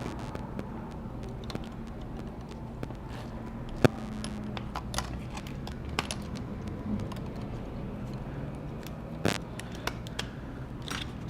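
Light clicks and taps of hand tools and parts being handled on a MacBook Pro during a battery replacement, scattered and irregular, with one sharp click about four seconds in and a few more near the end, over a steady low hum.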